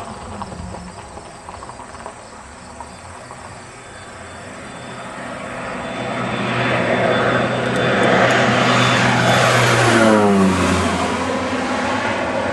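Crop-duster airplane's engine and propeller growing louder as it comes in low, loudest about three quarters of the way through, with the engine pitch sliding down as it passes overhead.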